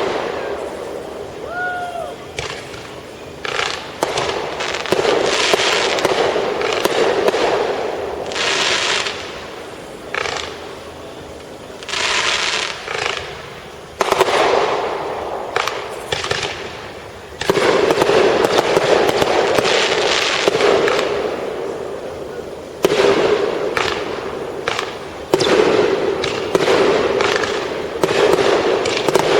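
Fireworks going off one after another: sharp bangs followed by crackling and hissing, with louder volleys coming in the second half.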